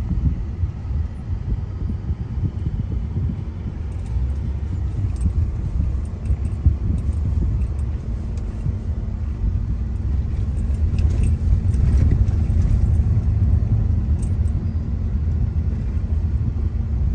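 Car driving, heard from inside the cabin: a steady low rumble of engine and tyres on the road, with light rattles and clicks.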